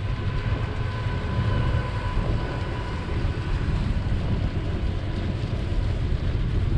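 Wind buffeting the microphone of a moving bicycle, a steady low rumble that rises and falls with the gusts. A faint, thin, high steady tone sounds through it for the first few seconds, then fades.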